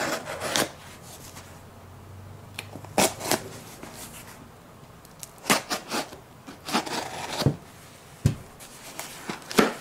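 Knife cutting the packing tape on a cardboard shipping box: short scraping rasps as the blade is drawn along the seams, with cardboard knocks as the box is turned and handled.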